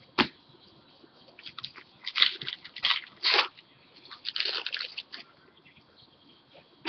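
Chrome trading cards being flipped and slid against each other in the hands: a sharp snap just after the start, then several short scratchy rustles.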